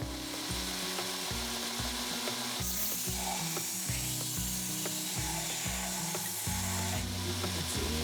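Background music with a steady beat and a stepping bass line, over a steady hiss.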